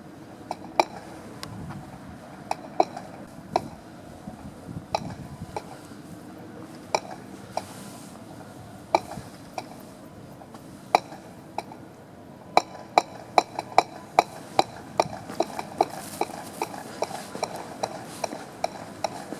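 Pedestrian crossing signal ticking. Slow ticks, about one every 0.7 seconds, mean a red man: don't cross. About twelve seconds in the ticking speeds up to two or three ticks a second, the signal that the green man is showing and it is safe to cross.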